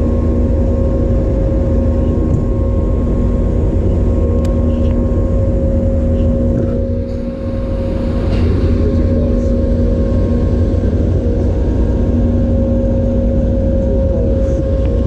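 Steady machinery hum: a continuous low rumble carrying fixed, unchanging tones, with a brief dip in level about seven seconds in.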